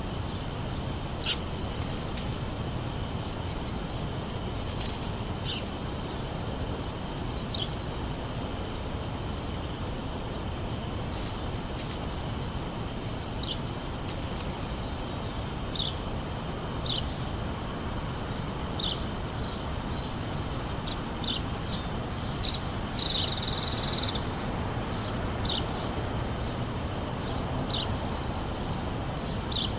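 Small songbirds chirping, with short high notes about once a second throughout, over a steady low background rumble and a thin steady high tone.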